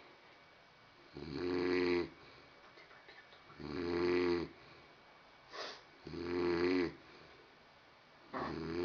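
A sleeping man snoring: three long snores, each about a second, coming roughly every two and a half seconds, with a brief short snore between the second and third and another snore starting near the end.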